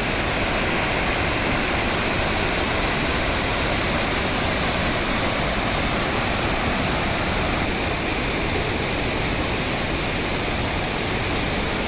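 Creek rapids and small waterfalls rushing steadily, a continuous loud roar of white water.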